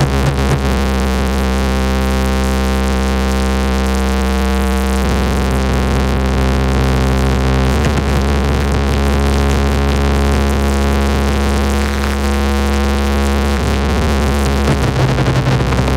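Loud synthesizer music from large DJ sound-system rigs: held chords that change every few seconds over a continuous deep bass drone.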